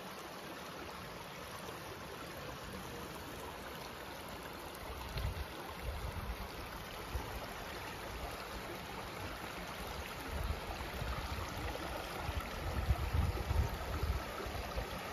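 Steady rush of a running stream, with uneven low rumbles coming and going from about five seconds in.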